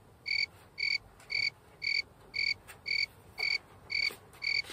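Evenly repeating electronic beep, about two short high beeps a second: a loading or buffering sound effect added in editing.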